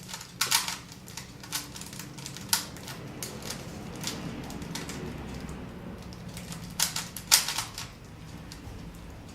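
Plastic Rubik's cube being turned quickly by hand, its layers clicking in irregular bursts, with a louder cluster of clicks about seven seconds in.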